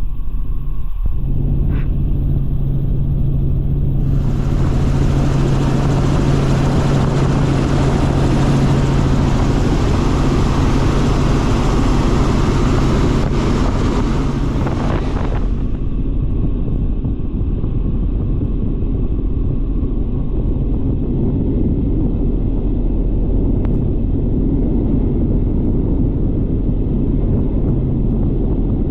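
Helicopter cabin noise in flight: a loud, steady drone of engine and rotors with a constant low hum. From about four seconds in to about fifteen seconds, a band of hiss is added, then drops away suddenly.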